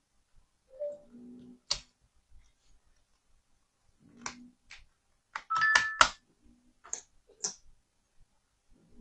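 Scattered sharp clicks and taps from handling a laptop and its parts, with a few brief low hums in between. A denser, louder run of clicks with two short tones comes about six seconds in.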